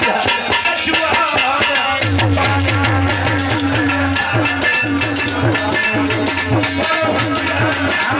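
Live Indian folk music from a stage band: a steady drum beat with rattling percussion under a sustained melody.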